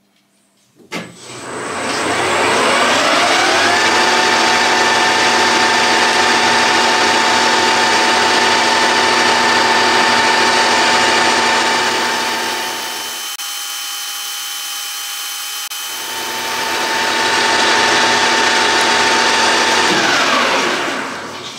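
1982 Colchester 1800 manual lathe switched on with a click, spinning up with a rising gear whine, then running steadily while turning a copper bar. It runs briefly quieter about two-thirds through and winds down with a falling whine near the end.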